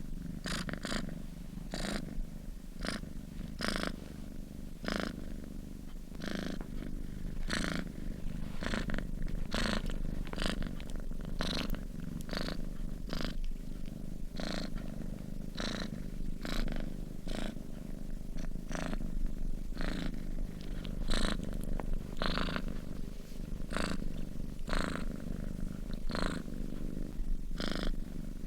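Domestic cat purring steadily in its sleep, each breath in and out adding a soft breathy rasp in an even rhythm.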